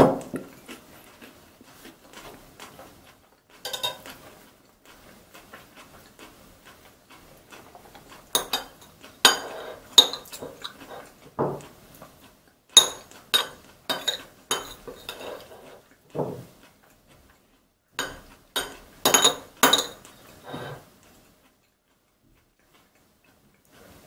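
Metal spoon clinking and scraping against a ceramic plate as salad filling is scooped out, in irregular clusters of sharp clicks, with a thud of a cup set down on the table right at the start. The clinks stop a few seconds before the end.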